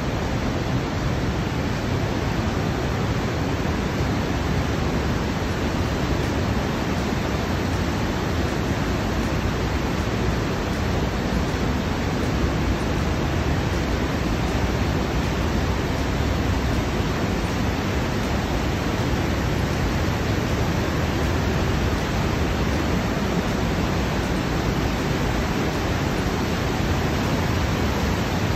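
Water of a torrent rushing through a narrow rocky gorge below, a steady, unbroken noise.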